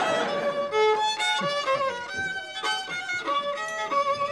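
Violin playing a melody, one note after another.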